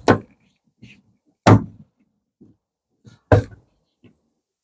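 Plastic retaining clips popping out one by one as the inner door cover is pried free, three sharp snaps about a second and a half apart with a few faint ticks between.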